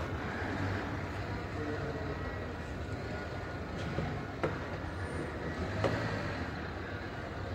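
Steady background hum and rumble of a car-repair workshop hall, with a few faint knocks.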